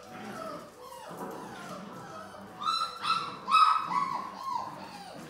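Six-week-old Labrador Retriever puppies yipping and whining as they play-fight and tug at toys, short high calls that fall in pitch, with a run of louder yips about three seconds in.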